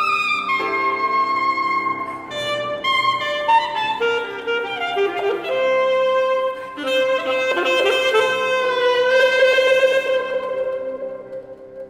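Alto saxophone with piano accompaniment playing a slow passage. The saxophone steps down through several notes, then holds one long note with vibrato that fades away near the end.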